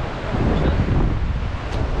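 Strong storm wind buffeting the microphone in a steady low rumble, over the rush of storm waves breaking on the sea shore.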